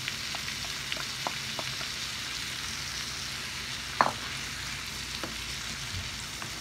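Leeks, green onions and freshly added diced red peppers sizzling steadily in butter and oil in a large pan, with scattered small crackles. About four seconds in, a wooden spoon knocks once against the pan as stirring begins.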